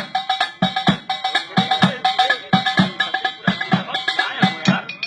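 Instrumental break in a folk-style song: a drum keeps a steady, quick beat under a held melody line, with no singing.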